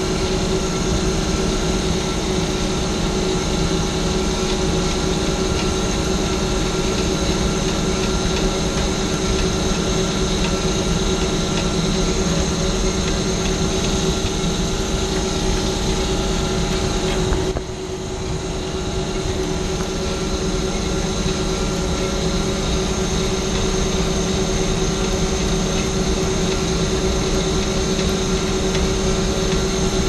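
Steady drone of running HVAC machinery, with several steady tones over a dense rumble. The level drops suddenly about 17 seconds in, then builds back over a few seconds.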